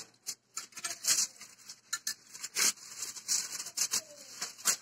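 Aluminium foil crinkling and rustling in irregular bursts as metal tongs pull it off a baking dish.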